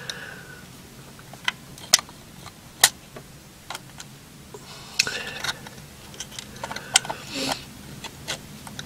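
Small metallic clicks and ticks at irregular intervals, with some soft handling rustle, as fingers work the vacuum advance linkage and breaker plate inside an open Ducellier distributor.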